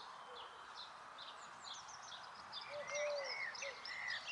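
Birdsong: a run of short chirps and twitters from small birds, with a lower, curved call a little under three seconds in, over a faint steady background hiss.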